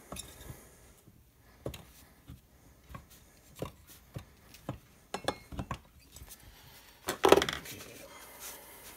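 Light metallic clicks and knocks as a Stihl MS270 big bore cylinder is worked down by hand over the piston and rings, with a louder clunk about seven seconds in.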